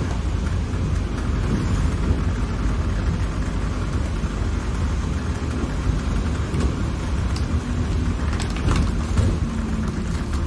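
London bus running along the road, heard from inside the passenger cabin: a steady low engine and road rumble with tyre noise, and a few clicks and rattles from the bodywork about eight to nine seconds in.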